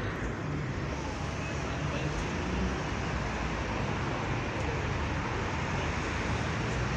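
Street traffic noise: cars running and passing on a city road, a steady low rumble with no sharp events.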